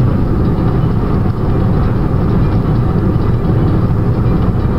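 Steady low rumble of a car driving on a highway, heard from inside the cabin: engine and road noise with no sharp events.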